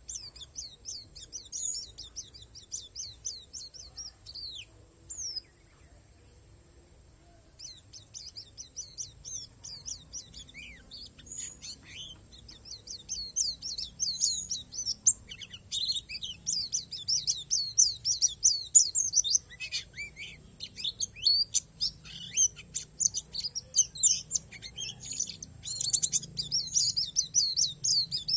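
Pleci palas Borneo white-eye singing a fast, high-pitched twittering song of rapid chirps. It breaks off for about two seconds after five seconds, then comes back and grows louder and denser from about halfway.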